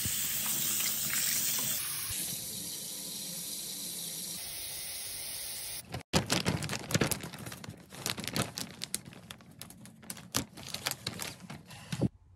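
Bathroom sink faucet running steadily into the basin. About six seconds in, after a cut, a plastic shower curtain crinkles and rustles in irregular crackles as a hand handles it close up.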